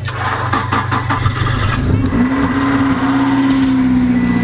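Acura Integra's four-cylinder engine cranking on the starter for about two seconds, then catching and settling into a steady fast idle. It is being jump-started after sitting unused for a month or two.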